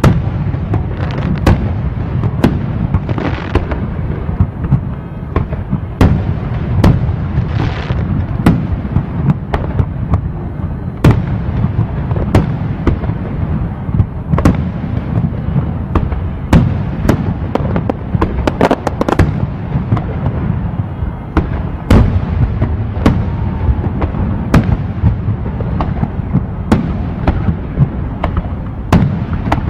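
Fireworks display: aerial shells going off one after another, frequent sharp bangs over a continuous low rumble, with a dense run of bangs about two-thirds of the way through.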